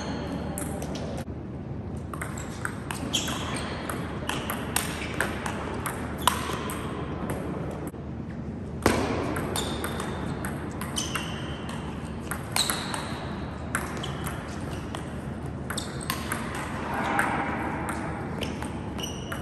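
Table tennis rallies: the ball clicking off rubber bats and bouncing on the table in quick, irregular series of sharp pings, with the hall's reverberation. One louder hit comes about nine seconds in.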